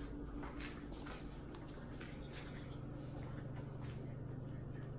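Quiet room tone: a steady low hum with a few faint soft clicks.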